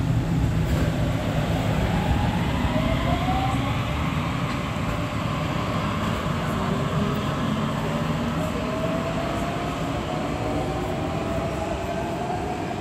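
Budapest M3 metro train pulling out of the station and accelerating away into the tunnel: a low rumble of wheels on rail with rising whines as it picks up speed, fading a little as it goes.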